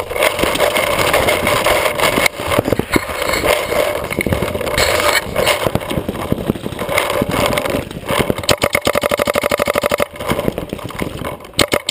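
Paintball marker firing rapid strings of shots, with a dense run of sharp cracks and knocks at first and a long even burst of about a dozen shots a second near the end.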